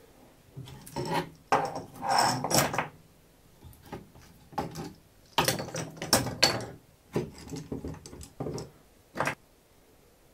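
Steel bar clamps being loosened and pulled off a glued-up plywood part, with clicks, scrapes and knocks of metal and wood in irregular clusters, loudest about two and six seconds in.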